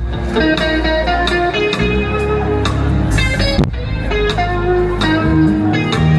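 Live band playing an instrumental passage: a guitar melody over bass and drums, with no singing.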